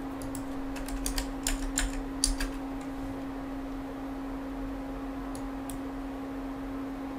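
Typing on a computer keyboard: a quick run of keystrokes in the first two and a half seconds, then two more about five and a half seconds in, over a steady low hum.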